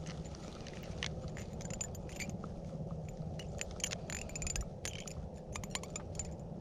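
Scattered small clicks and short scrapes of hands handling a fishing rod and reel while untangling the line, over a low steady rumble.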